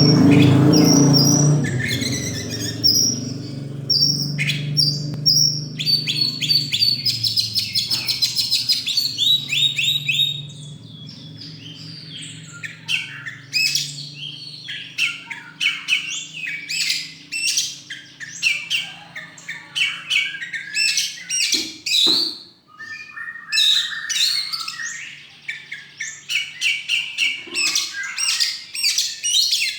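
An Oriental magpie-robin (kacer) in full song: rapid, varied runs of high chirps, whistles and trills that repeat in quick bursts, over a low background hum during the first ten seconds or so.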